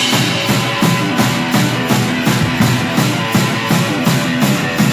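Live rock band playing: electric guitar and a drum kit keeping a fast, steady beat of about four hits a second.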